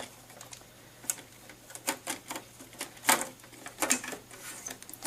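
Irregular clicks, knocks and light scraping as the top cover of a Sony Blu-ray player is worked loose from its notches and slid off the chassis. The loudest knock comes about three seconds in.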